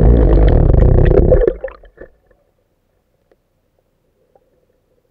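GoPro camera sinking underwater: a loud, muffled rumbling and gurgling of water moving past its housing that dies away about a second and a half in, then near silence underwater.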